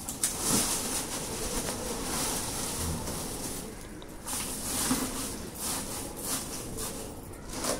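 Dry leaves rustling and crackling irregularly as they are pushed and spread by hand into a compost container as a layer.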